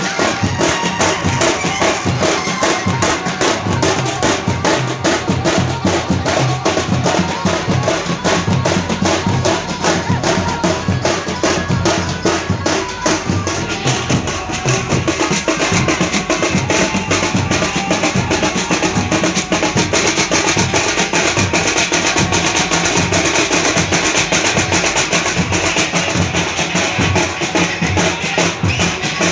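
Teenmaar band drumming for street dancing: loud, fast, dense drum beats that run on without a break.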